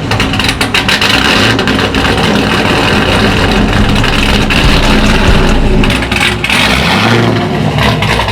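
Chevrolet C5 Corvette's LS V8 with a BTR Stage 3 camshaft, running loud and choppy through long-tube headers and a catless Corsa exhaust.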